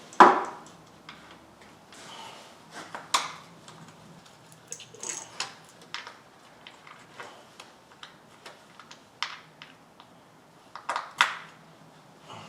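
Hard plastic and metal parts and hand tools being handled: scattered light clicks and clatter, with sharper knocks just after the start, about three seconds in, and about eleven seconds in.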